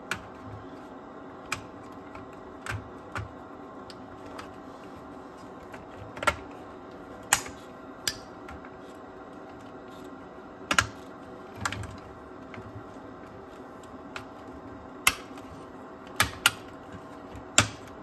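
Small plastic wire connectors being pushed back onto a Technics RS-BX707 cassette deck's circuit board: about a dozen sharp, irregular clicks and light knocks over a faint steady hum.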